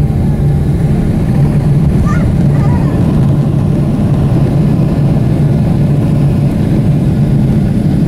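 Boeing 777-300ER's GE90 jet engines at takeoff thrust, heard from inside the cabin: a loud, steady roar with a low hum and rumble through the takeoff roll and climb-out.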